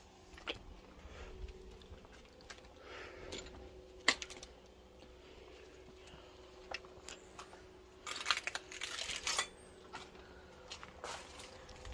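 Scattered light knocks and clicks, with a denser clatter lasting about a second and a half some eight seconds in.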